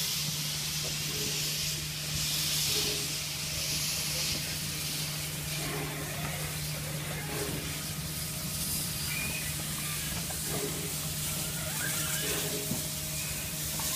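Victorian Railways K-class 2-8-0 steam locomotive K190 standing in steam, hissing steam from the cylinder drain cocks. The hiss is loudest for the first few seconds, then settles to a weaker hiss over a steady low hum, with faint voices of onlookers.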